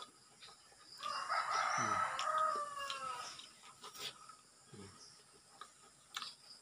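A rooster crows once: a single call of about two seconds that drops in pitch as it ends.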